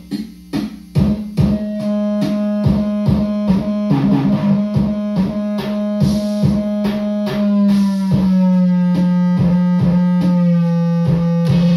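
Circuit-bent Meowsic toy keyboard playing a glitchy electronic loop: a steady clicking beat, joined about a second in by a held, buzzy drone. The drone steps down in pitch twice, once about eight seconds in and again near the end.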